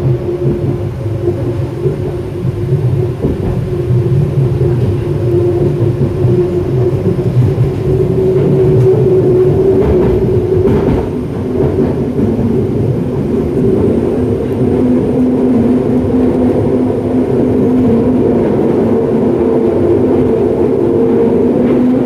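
Detroit People Mover car, driven by linear induction motors, running along its elevated guideway, heard from inside the car. A steady rumble of the wheels on the track carries humming drive tones that shift in pitch about halfway through.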